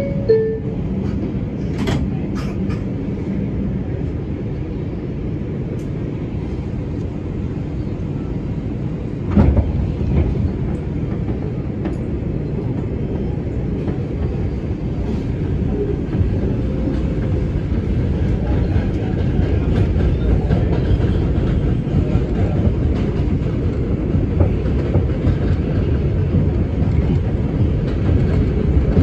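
New York City subway train heard from inside the car, running along the rails as it pulls out of an elevated station, with a sharp thump about nine seconds in. The rumble grows louder in the second half as the train gathers speed.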